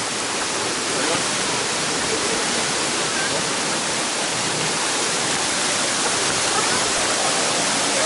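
Waterfall pouring onto rock: a steady, dense rushing of falling water.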